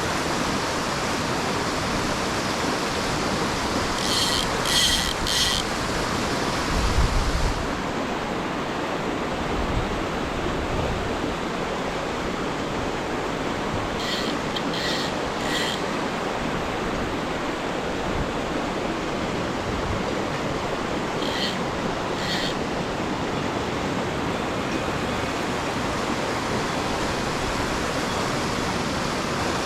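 Mountain torrent rushing steadily. Three groups of short, high-pitched chirping notes stand out over it: three a few seconds in, three more about halfway, and two later. There is a brief low bump a little before the first third.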